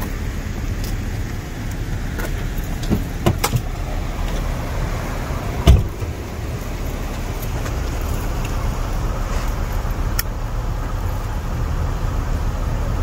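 Steady low traffic noise from cars passing on the road, with a few sharp clicks about three seconds in and a single loud thump a little before halfway.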